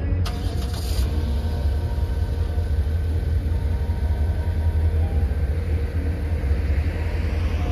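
Engine running with a steady, low rumble.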